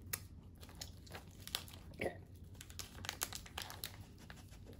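Faint, irregular crinkling of a plastic snack wrapper being handled, with a brief vocal noise from the taster about two seconds in.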